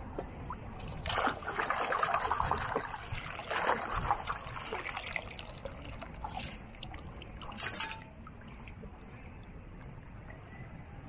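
Water splashing and trickling around a camera held at the water's surface. It goes in a few seconds of crackling splashes, then two short separate splashes.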